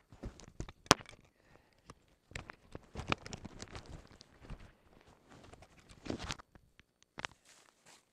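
Close handling noise: irregular knocks, scrapes and rustling as fabric rubs over the microphone while the person moves about on leaf-littered ground. The sharpest knock comes about a second in, and it goes quieter near the end.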